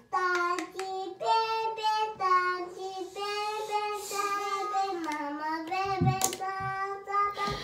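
A young child singing a tune without clear words in long held notes, with a sharp click about six seconds in.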